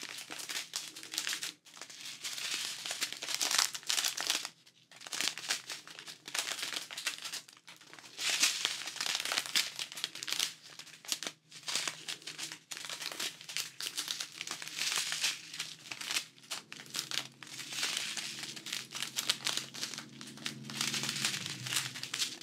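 Strips of small clear plastic diamond-painting drill bags crinkling and rustling as they are handled and turned, in irregular bursts with short pauses.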